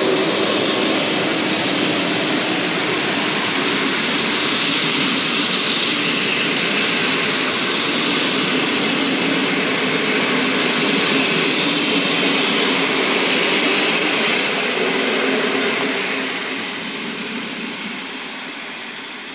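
Coaches of a locomotive-hauled passenger train rolling past close at speed, a steady rush of wheels on rails. About three-quarters of the way through it starts to fade as the end of the train draws away.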